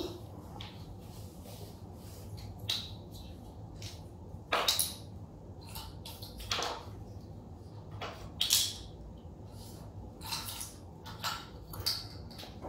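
Wooden alphabet puzzle pieces clicking and clattering as a small child picks them up and fits them into a wooden peg board: short scattered knocks every second or two, the loudest about four and a half and eight and a half seconds in, over a faint steady hum.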